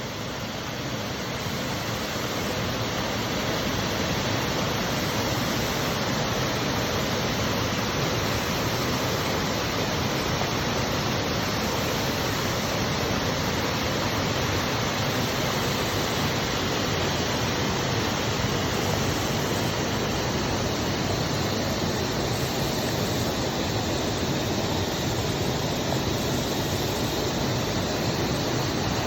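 A waterfall's rushing water, a steady roar that grows louder over the first few seconds and then holds constant.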